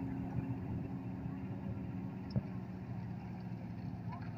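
Kobelco hydraulic excavator's diesel engine running steadily while the boom lifts a bucket of river rocks, with a single sharp knock about two and a half seconds in.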